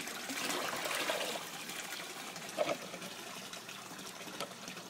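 Murky water and sludge poured from a cut-open plastic jug into a plastic bucket, splashing most strongly in the first second or so and then tailing off to a faint trickle. A short sound breaks in about halfway through.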